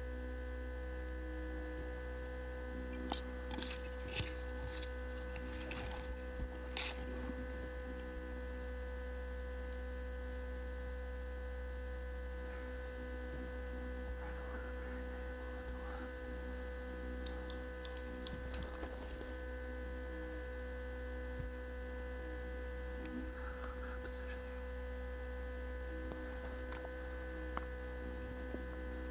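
Steady electrical hum made of several fixed tones, with a few sharp clicks and knocks scattered through it, most of them in the first quarter and around two-thirds of the way in.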